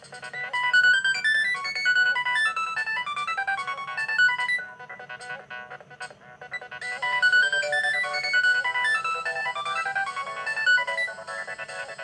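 A Nokia ringtone, a quick synthesized melody of many short notes, playing through a feature phone's small loudspeaker. It starts right away, thins out about four and a half seconds in, and comes back fuller near seven seconds.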